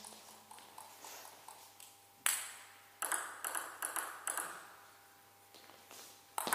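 Table tennis ball clicking as it is bounced and struck on the table and rubber paddles: light taps in the first two seconds, then a run of sharper hits, a short lull, and more hits near the end.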